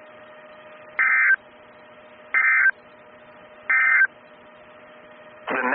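Emergency Alert System SAME end-of-message data signal: three short bursts of digital data tones about a second and a half apart, marking the end of the alert. A faint steady hum sits between the bursts.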